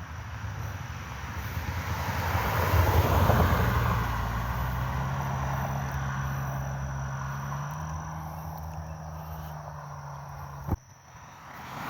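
A car or truck passing on the road, its engine and tyre noise swelling to a peak about three seconds in and then slowly fading, with a steady low engine hum. It ends in a sharp click and a sudden drop in sound.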